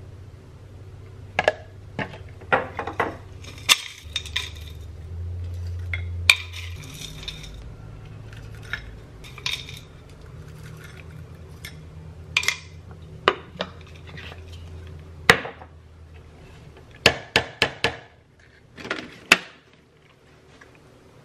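Spoons tapping, scraping and clinking against a small glass cup and glass jars as yogurt and granola are spooned out, a string of sharp separate clinks with a quick cluster near the end. A low steady hum runs underneath.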